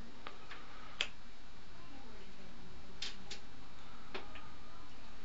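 African grey parrot making sharp clicks, about seven of them, irregularly spaced, the loudest about a second in, over a steady low hum.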